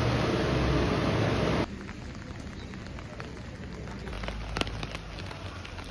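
Rain. A loud, steady rushing noise cuts off abruptly about a second and a half in, leaving quieter rainfall with scattered drops ticking close by.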